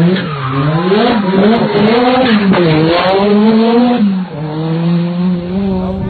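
Rally car engine revving hard through a tight hairpin, its pitch climbing and dropping several times with the throttle and gear changes, then holding steady near the end. A few sharp exhaust pops cut through the engine note.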